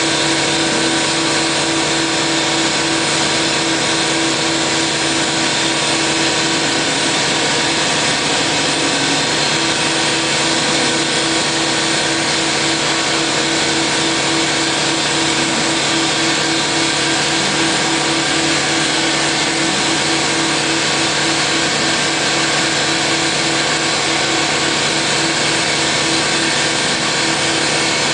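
DMS 5-axis CNC router running steadily as it cuts in 5-axis mode: a constant machine whine and hum, with a strong low tone that pulses slightly.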